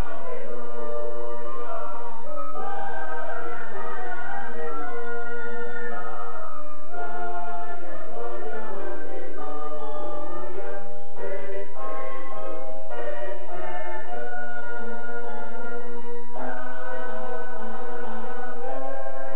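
Mixed choir of men and women singing a Christian song in harmony into microphones, the voices pausing briefly between phrases a few times.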